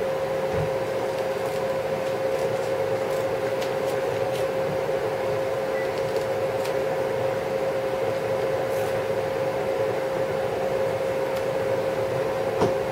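A steady room hum with one constant mid-pitched tone, like a fan or air conditioner, with a few faint, scattered snips from scissors cutting Velcro.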